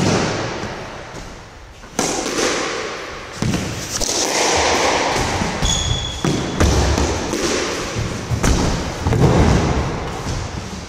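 A squash rally: the ball cracks off rackets and court walls about five times, a second or two apart, each hit echoing in the enclosed court. A brief high shoe squeak on the court floor comes about six seconds in.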